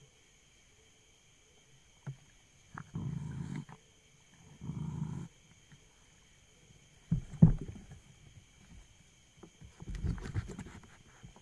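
A series of low, dull thumps and short rumbling bursts, a second or two apart, the loudest a sharp double thump past the middle, over a steady faint high-pitched hum.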